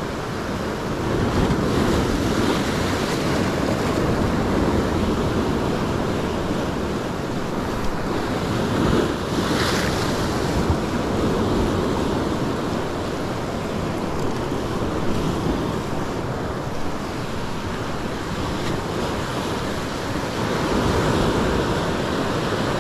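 Sea surf breaking and washing over a rocky shore ledge, with wind buffeting the microphone. A wave breaks with a louder, hissier splash about ten seconds in.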